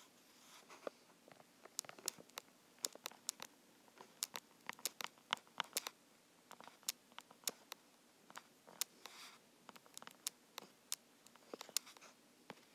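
Stylus tip tapping and ticking on an iPad's glass screen during handwriting: faint, irregular sharp clicks, several a second, coming in clusters.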